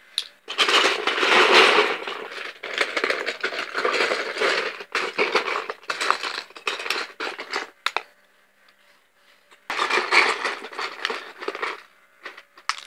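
Loose plastic Lego bricks rattling and clattering as a hand rummages through a tub full of them. There are two bouts, a long one and a shorter one about ten seconds in.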